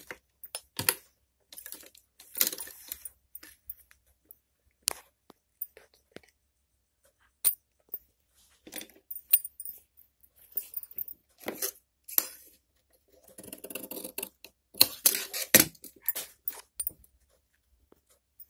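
Cloth rustling and scattered small clicks and taps as the blouse fabric is handled and smoothed by hand, in short irregular spells with quiet gaps between. The busiest stretch comes a little before the end.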